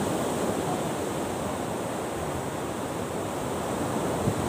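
Steady rush of sea surf and wind along the shore.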